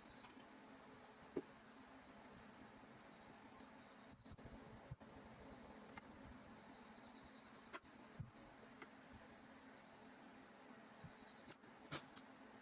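Near silence: a faint steady high-pitched hiss, with a few soft clicks and taps scattered through, the loudest near the end.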